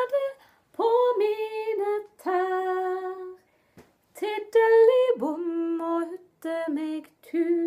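A woman singing a children's song unaccompanied, in four short phrases of held notes with brief pauses between them.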